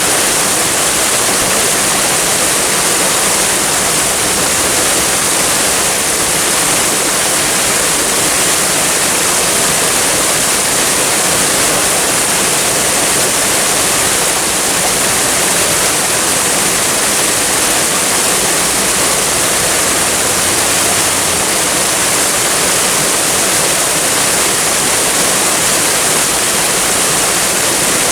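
Waterfall and flowing water rushing steadily, a constant hiss strongest in the high register, with no breaks or changes.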